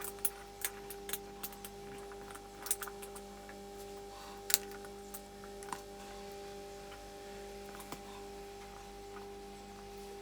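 Wire cutters and a knife cutting into a moulded plastic coax TV plug: irregular sharp clicks and snaps, bunched in the first half, with the loudest snap about four and a half seconds in. A steady hum runs underneath.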